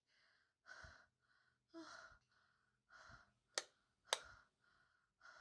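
Faint heavy breathing, a breath about every second, with two sharp clicks of wall light switches being flicked half a second apart, about three and a half seconds in.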